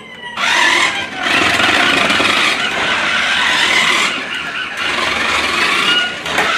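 Remote-control toy car driving: its electric motor whines and its tyres skid and scrub over the ground in spurts, easing off briefly about a second in and again around four seconds.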